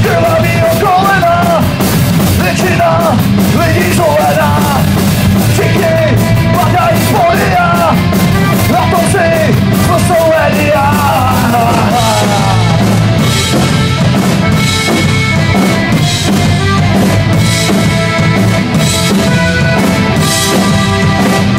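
Live punk rock band with accordion, electric guitar, electric bass and drum kit playing loudly. A sliding melody line in the first half gives way to steady held notes about halfway through.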